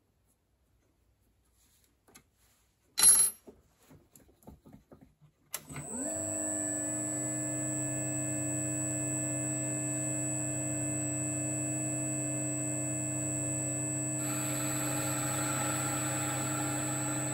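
A sharp clack about three seconds in, followed by a few lighter clicks. Then the Pultra 1750 clockmaker's lathe, driven by its new three-phase motor and inverter, spins up with a quick rise in pitch and settles into a steady hum with a high whine. About fourteen seconds in, a hiss joins as the tool starts cutting, turning down an over-long screw.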